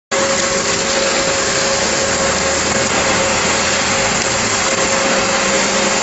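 Trailer concrete mixer pump running, with concrete in the mixing drum and hopper: a loud, steady machine noise with a constant whine.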